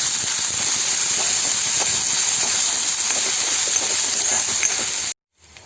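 Chopped shallots sizzling in hot sesame oil in a pan: a steady frying hiss with many small crackles. It cuts off abruptly about five seconds in.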